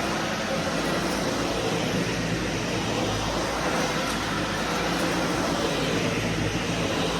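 Vacuum cleaner running steadily: an even rush of air over a low motor hum.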